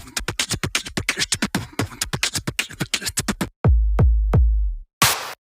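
Electronic drum-machine music: a fast roll of sharp drum hits for about three and a half seconds, then deep booming bass drum hits that drop in pitch, with a short rising hiss near the end.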